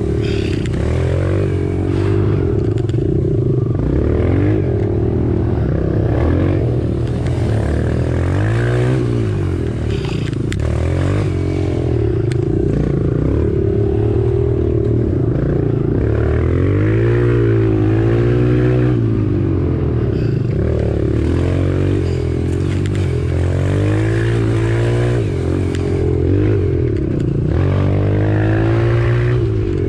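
Off-road motorcycle engine running continuously, its pitch dipping and climbing again and again as the throttle is rolled off and back on.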